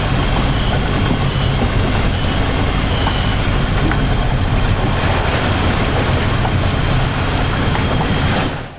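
Twin-engined speedboat's motors running steadily under way: a low engine drone mixed with a noisy rush of water. The sound drops away sharply near the end.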